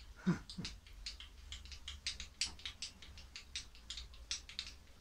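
Hand-cranked table handwheel of a SIEG milling machine being wound along, giving a quick, irregular run of light clicks, several a second, as the table traverses towards the end of its travel. A brief falling vocal sound comes twice just after the start.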